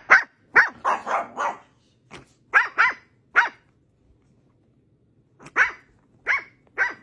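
Small dog barking in short, sharp yaps: a quick run of about nine, a pause of about two seconds, then four more.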